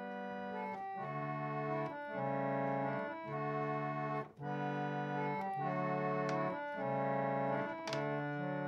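Pump organ (reed organ) playing slow, sustained chords, each chord held for about a second before the next.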